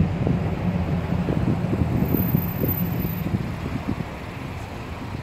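Low rumble of road traffic and car engines, with wind buffeting the microphone in irregular gusts. It gets quieter about four seconds in.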